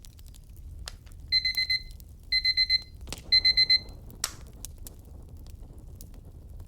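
Digital timer alarm beeping: three rounds of four quick high-pitched beeps, about a second apart, the pomodoro timer signalling the end of a study session. Fire crackling faintly underneath.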